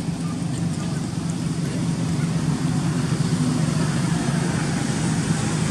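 Steady low engine hum of a running motor vehicle.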